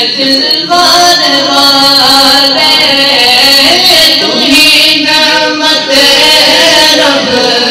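Male voices singing a na'at, an Urdu devotional poem, in a slow melodic chant with long held, wavering notes.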